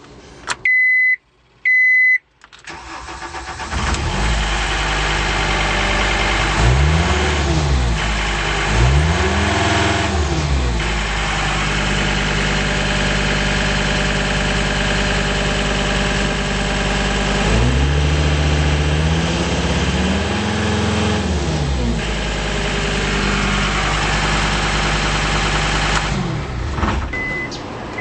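Two short beeps, then the turbocharged diesel engine of a John Deere 332D skid steer loader cranks and starts, runs steadily and is revved up and back down four times, in two pairs. Near the end the engine shuts down, followed by another short beep.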